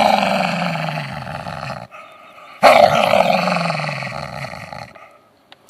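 An animal roaring twice, each roar about two seconds long and falling in pitch, in the manner of the MGM lion's roar, set to a snarling dog.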